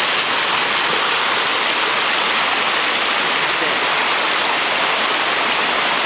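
A small stream running over rocks: a steady, even rush of water.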